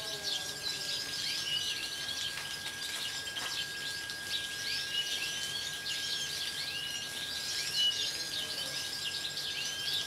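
A dense chorus of many small aviary finches chirping and twittering over one another, with a faint steady high tone running underneath.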